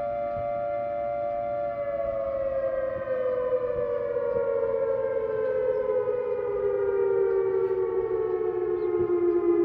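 Pitched-down recording of a Whelen ESC 864 warning siren played through loudspeakers. It holds a steady tone of two close pitches, then about two seconds in begins a slow, even fall in pitch as the siren winds down.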